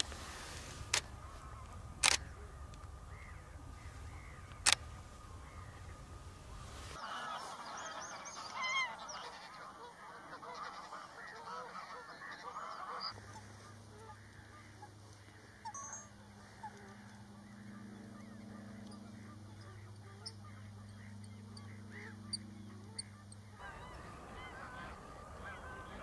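Meadow ambience in three parts: wind rumbling on the microphone with a few sharp clicks, then, about seven seconds in, a spell of many birds calling, then a steady low hum for the last ten seconds or so.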